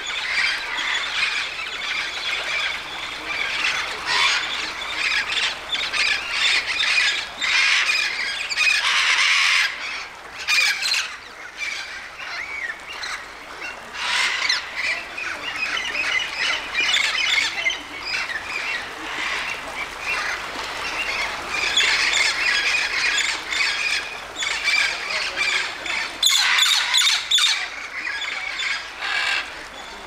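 A flock of parrots squawking and screeching, many harsh calls overlapping with hardly a break, loudest about a third of the way in and again near the end.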